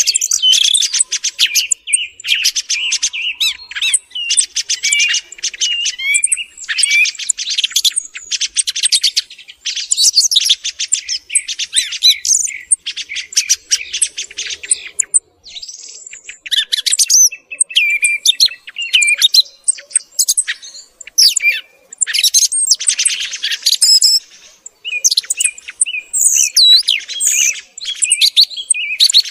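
Song thrush singing: a dense run of quick, high-pitched phrases, chirps and trills, broken by a few short pauses about midway and again after about two thirds.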